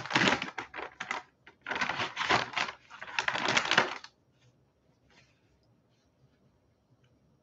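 Crinkling, crackly rustle of a makeup-removal wipe being pulled from its packet, lasting about four seconds, then only a few faint soft sounds as the wipe is rubbed on the lips.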